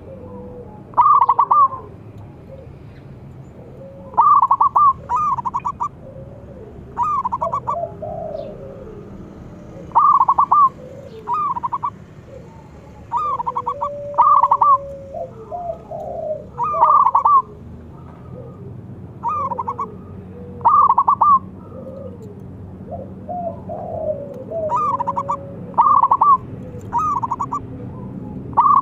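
Zebra dove (perkutut) singing: short bursts of quick, rolling repeated coos, about fifteen of them, coming every one to three seconds. Quieter lower calls and faint high chirps of other birds sound between them.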